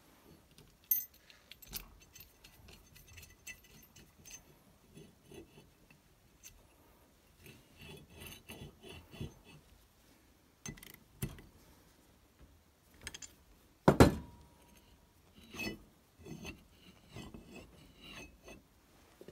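Small steel parts clinking and tapping as a bolt, washer and spacer are handled and fitted into the vise's swivel base, with one louder metal knock about three-quarters of the way through.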